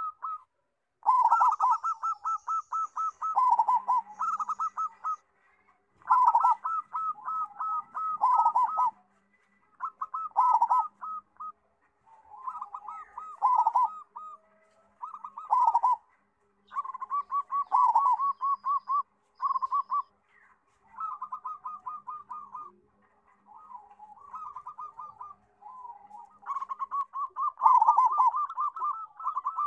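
Zebra dove (perkutut) singing: about a dozen phrases of fast, rhythmic cooing notes, each lasting one to three seconds, with short pauses between them.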